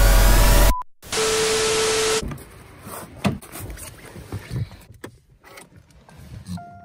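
Electronic dance music with rising sweeps cuts off abruptly under a second in, followed by about a second of loud hiss with a steady beep. Then come quiet knocks, clicks and rustling as a phone is handled inside a Volkswagen car, with a short electronic tone near the end.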